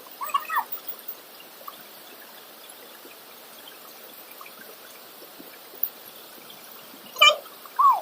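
Birds calling over a steady rush of river water: a few short arching calls just after the start, then a warbling call and a falling call near the end.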